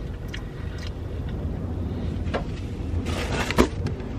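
Low steady rumble of a car cabin, with a few faint clicks. About three seconds in comes a short burst of rustling and handling noise ending in a sharp knock, as the camera is picked up and moved.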